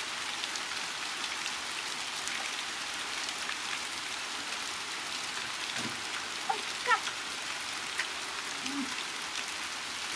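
Steady rain falling, an even speckled hiss, with a brief rising chirp or squeak about seven seconds in.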